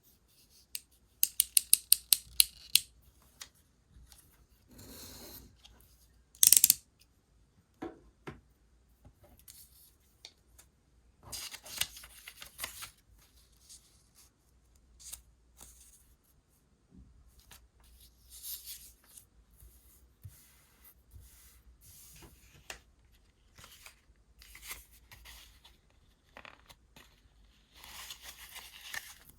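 Scissors cutting paper decorating material, with a quick run of sharp snips near the start and a loud single snip a few seconds later. Paper is rustled and scraped between cuts.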